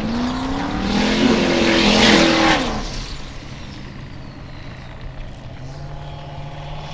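Formula Offroad buggy's engine revving hard as its paddle tyres spin and spray loose gravel, loudest about two seconds in. The revs then drop to a lower, steady running note.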